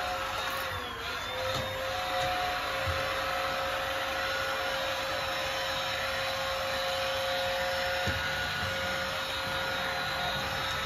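Cordless stick vacuum cleaner running steadily: a constant motor whine over rushing air. The pitch dips briefly about a second in, and there are a few light knocks.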